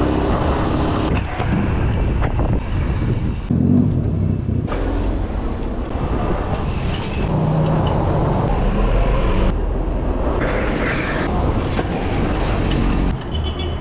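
Wind buffeting and street traffic picked up by a bicycle rider's action camera while riding through town, with the sound changing abruptly several times as short clips are cut together.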